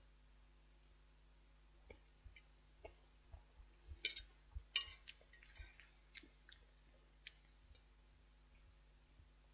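Eating sounds: scattered faint clicks and taps of a fork against the dish, most of them bunched about four to six seconds in, over a faint steady low hum.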